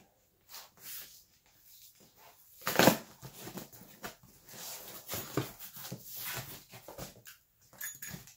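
Stapled cardboard shipping box being pried open by hand: the flap scraping and tearing free of its staples in irregular bursts, the loudest about three seconds in.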